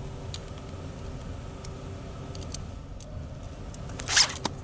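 York mini split ducted air conditioner running with a steady low hum and a faint steady tone. A few light ticks are heard. Near the end comes a brief loud noise, then a click.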